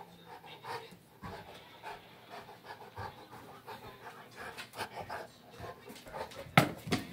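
Saint Bernard panting in quick, repeated breaths during rough play. About six and a half seconds in there is a single sharp knock, the loudest sound.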